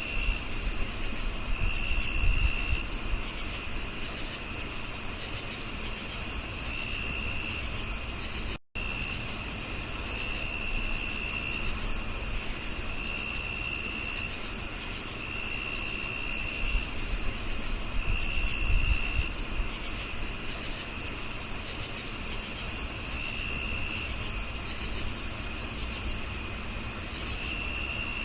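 Several crickets chirping: a continuous high trill with steady chirps about twice a second, and shorter trills coming in every few seconds. The sound cuts out for a moment about nine seconds in.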